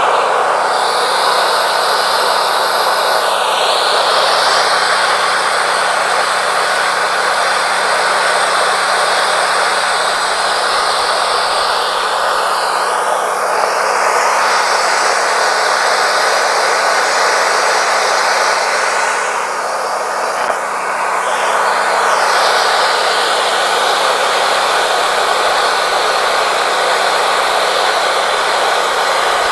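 Wood-Mizer LT40 Wide band sawmill running steadily, its band blade cutting through a yellow pine cant. The sound eases briefly about twenty seconds in, then carries on.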